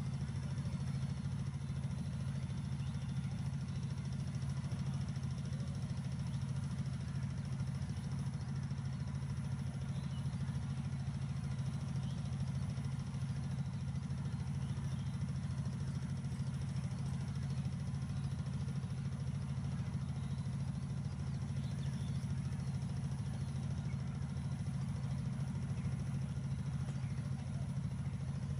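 Steady low drone of a distant diesel locomotive engine running, holding an even level with no change in pitch.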